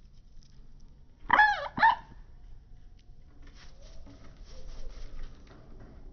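Two short, loud animal calls in quick succession, each dipping in pitch at the end, followed by a softer scratchy rustling.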